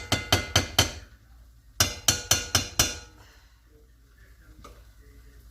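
A utensil knocking quickly against a cooking pot with a slight metallic ring, about four or five knocks a second, in two short runs. The second run starts about two seconds in, and the pot falls quiet in the second half.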